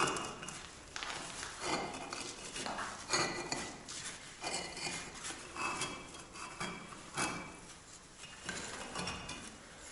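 Bricks being set down and knocked against one another, about a dozen sharp clinks, each with a short ring.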